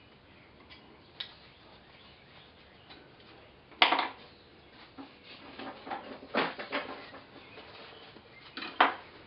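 Oil-painting tools being handled: scattered light clinks and knocks, the loudest about four seconds in and near the end.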